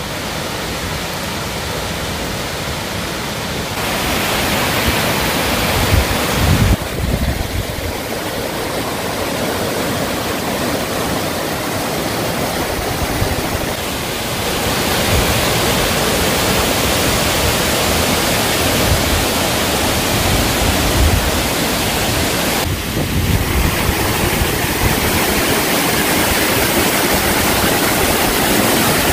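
Waterfall pouring, a continuous rushing of water that grows louder about four seconds in and again about halfway, with brief low rumbles of wind on the microphone around six seconds in.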